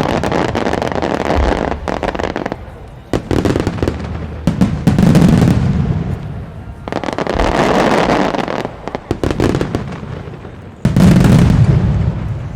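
Aerial fireworks shells bursting in quick succession: heavy booms that trail off over a second or two, with dense crackling and popping between them. The loudest bursts come about three seconds in, about four and a half seconds in, and near eleven seconds.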